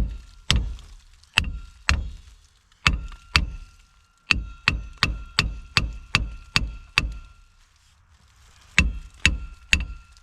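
Repeated hard blows on a Subaru BRAT's rear brake drum that is stuck tight on its hub, the drum ringing after each strike. There are about nineteen blows in uneven groups, a quicker run of them in the middle, a short pause, then four more.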